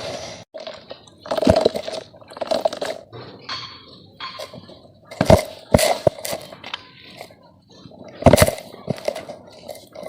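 Lumps of red dirt being smashed and crumbled, giving irregular crunching bursts with softer crumbling between them, about five loud crunches in all.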